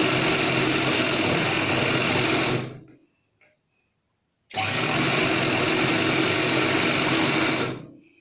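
Chauhan sewing machine stitching a seam: it runs steadily, slows and stops a little under three seconds in, then starts again abruptly about a second and a half later and runs for about three seconds before winding down near the end. A few faint clicks come in the pause while the fabric is repositioned.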